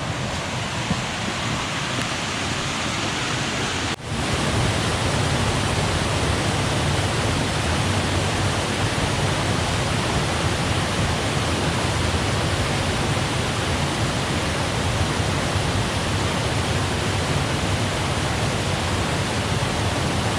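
Steady rush of water, heavy rain and a small stream's falling water, as an even hiss. About four seconds in it cuts briefly and comes back a little louder.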